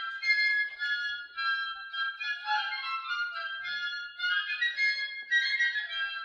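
Flutes playing a quick, high instrumental melody, the notes changing several times a second.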